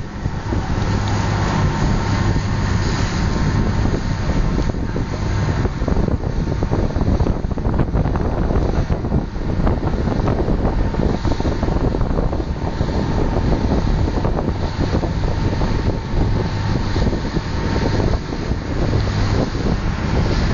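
Motorboat under way: its engine runs steadily with a low drone while wind buffets the microphone.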